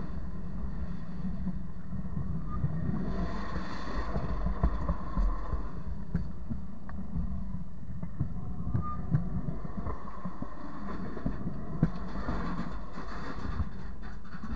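Freight cars rolling slowly over the track, heard from between the rails: a steady low rumble of steel wheels on the rails. It swells as each set of wheels passes, with scattered clicks and knocks.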